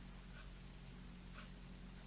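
Near silence: a steady low electrical hum with a couple of faint light ticks.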